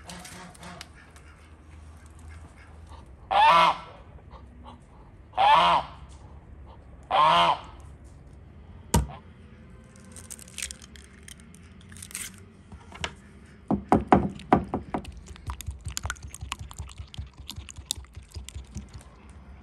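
A goose honks three times, each call short and about two seconds apart. Later comes a run of quick taps and clicks as raw eggs are beaten with a brush in a wooden bowl.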